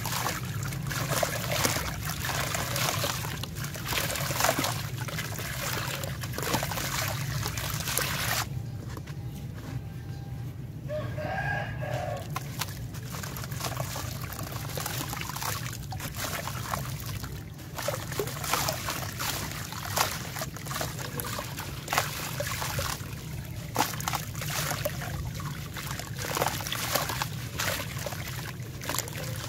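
A dry sand-cement ball crunching and crumbling as hands break it up, its grit pouring and trickling into water in a plastic tub. The crumbling pauses for a few seconds about a third of the way in, while a rooster crows once in the background.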